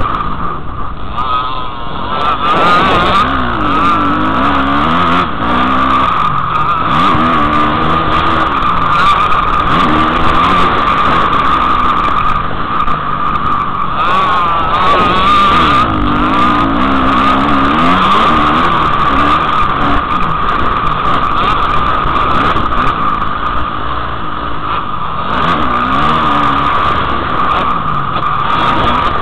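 Motocross dirt bike engine revving up and falling back again and again as it is ridden over the track, heard up close from the rider's helmet camera, over a constant rushing noise.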